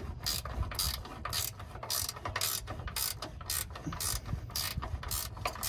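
Ratchet wrench clicking steadily, about three or four clicks a second, as a bolt on the air suspension compressor's mounting bracket is tightened.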